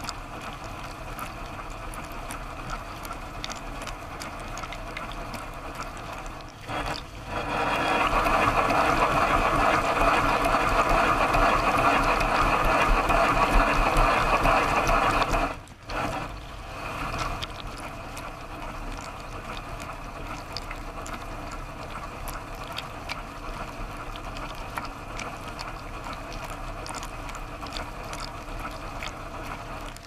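Dishwasher wash cycle heard from inside the tub: the circulation pump and spray arms throwing water over the dishes and steel walls in a steady rushing spray. The spray gets much louder for about eight seconds in the middle, after brief drop-outs, then settles back.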